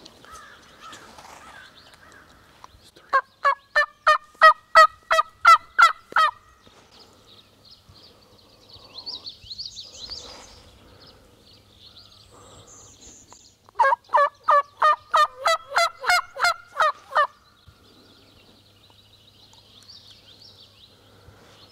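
Turkey yelping: two loud runs of about ten evenly spaced notes each, about three seconds long and some ten seconds apart. Faint songbird chirps sound between the runs.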